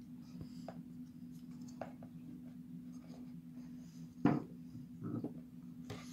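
Hands handling a plastic security camera: faint rustles and light clicks over a steady low hum, with one brief louder bump about four seconds in.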